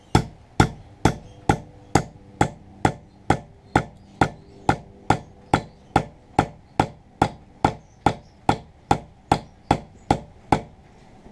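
A hammer tapping a wedge down into the top of a hatchet handle, driving it into the eye to spread the wood and tighten the head. The taps are light and evenly spaced, about two a second, with a faint ringing between them, and stop shortly before the end.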